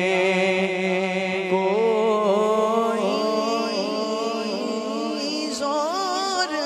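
Naat singing: a voice draws out a long, wavering wordless melisma over a steady sustained drone.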